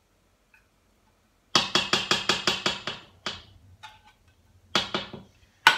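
Tomato paste being knocked out of a small can into the metal inner pot of an electric pressure cooker: sharp taps against the pot. After a second and a half of silence they come quickly, about five a second, then a few spaced ones, the loudest near the end.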